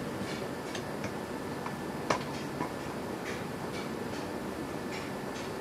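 A few light, sharp clicks and taps, scattered and irregular, the loudest about two seconds in, over a steady background hiss.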